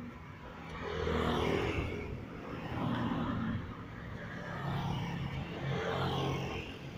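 Street traffic: engines of passing scooters and cars rising and fading about three times.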